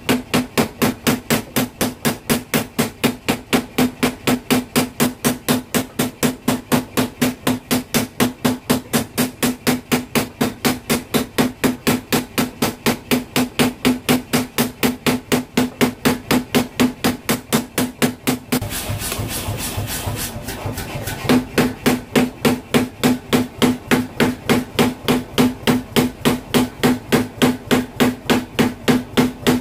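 Power hammer ram striking a hot knife blade on the anvil in a fast, even train of metallic blows. The blows stop for a couple of seconds after the middle, leaving a steady rush of noise, then start again at the same pace.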